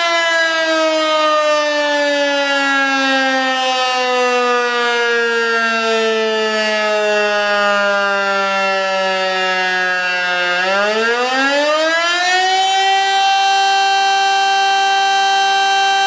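Rooftop electric motor siren sounding the fire-brigade alert: its wail slowly sinks in pitch as the rotor coasts down, then about two-thirds of the way through it winds back up over a couple of seconds and holds a steady high tone.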